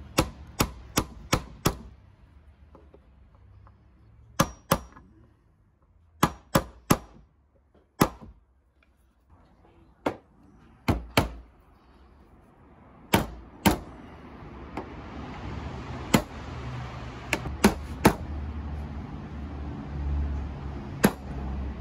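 Claw hammer driving nails into the pine boards of a wooden door: sharp taps in quick runs, several in a row at the start, then in pairs and small groups every second or two. A steady rumbling noise builds up behind the taps in the second half.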